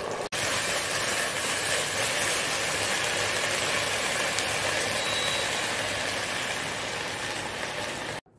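Minced beef in bulgogi sauce sizzling steadily in a hot wok as it is stir-fried down until its liquid cooks off and it turns dry.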